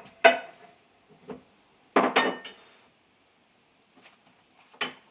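Kitchen dishes and utensils being handled: several separate sharp clinks and knocks, the loudest about two seconds in, with a brief ring after it.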